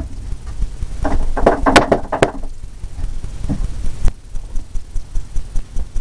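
A wet paintbrush being knocked rapidly against a brush-cleaning container to shake off excess odorless paint thinner: a quick run of dull knocks, with a few sharper clicks in the first half.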